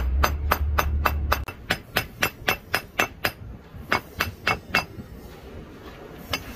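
Hammer peening the brass pins of a knife bolster against a steel plate: quick, even metallic taps about four a second for around three seconds, then four more after a brief pause and a single tap near the end.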